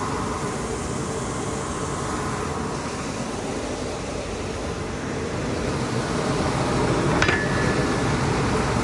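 Steady running noise of a Sanderson WDE-2-1300 twin-belt industrial wide belt sander, growing louder toward the end, with one short sharp click about seven seconds in.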